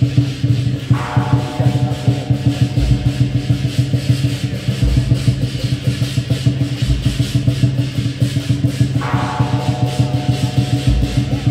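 Percussion-led music with a fast, steady beat and a deep hit about every two seconds; twice a ringing tone sounds and fades.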